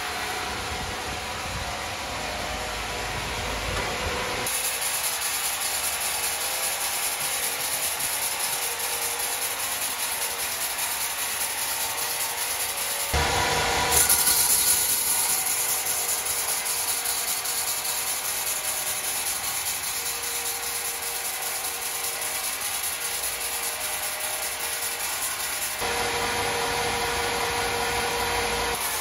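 Sawmill saw cutting through wood: a steady rasping noise, with abrupt changes in loudness and tone a few times.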